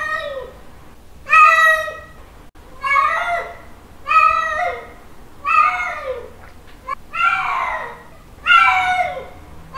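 Male cat's mating calls: a string of loud, drawn-out meows about every second and a half, each one sliding down in pitch at its end.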